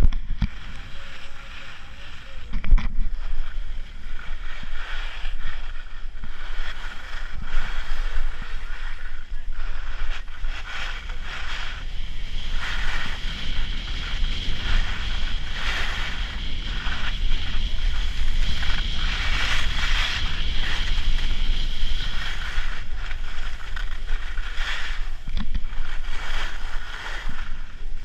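Ski or snowboard edges scraping and carving on groomed snow through a run of turns, each turn a short surge of hiss, over a steady rumble of wind on the microphone.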